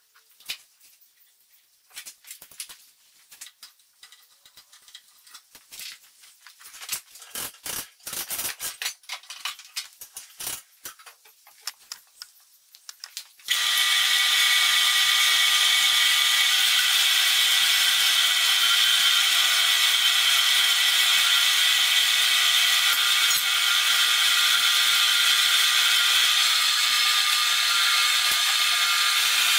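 Scattered clicks and knocks of the saw being handled, then about halfway through a 7x12 metal-cutting bandsaw switches on and runs steadily with a high whine, its new blade running free with nothing in the cut.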